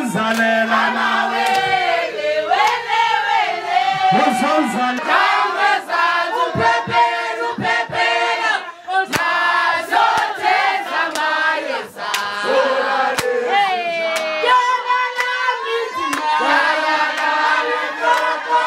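A crowd of women singing a song together and clapping their hands, with loud shouts and high cries over the singing.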